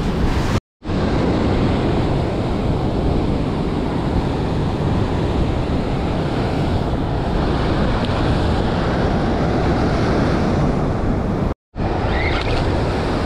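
Ocean surf breaking and washing over shoreline rocks, loud and steady, with two brief moments where the sound cuts out completely, about a second in and near the end.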